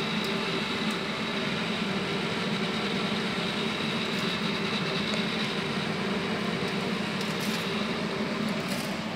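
Pellet grill running: a steady fan hum with a few faint ticks over it.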